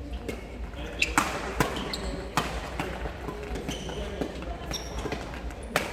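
Badminton rackets striking a shuttlecock in a doubles rally: a series of sharp cracks, the loudest about a second in and again near the end, with short squeaks of sports shoes on the court floor between the shots.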